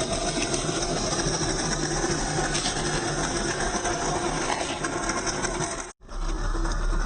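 Axial SCX10 II RC crawler driving, its 35T brushed electric motor and geared drivetrain whirring steadily. The sound cuts out for a moment about six seconds in.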